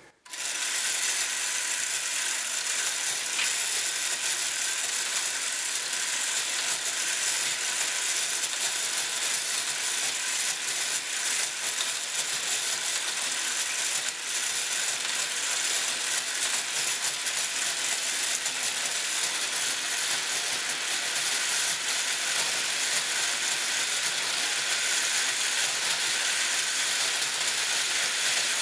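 LEGO motor driving a geared-up wheel that spins very fast, switched on at the start, with small plastic balls rattling as they roll around a ring of plastic train rails and are flung through the accelerator's two wheels. A steady, dense whirring rattle full of fine clicks.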